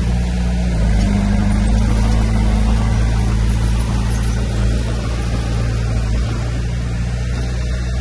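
Diesel engine of heavy earthmoving equipment running steadily, its pitch shifting slightly about a second in and again around six seconds.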